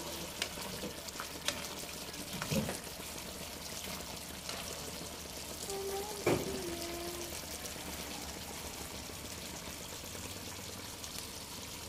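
Pot of laing, taro leaves in coconut milk, simmering with a steady bubbling hiss, with a couple of knocks, the loudest about six seconds in.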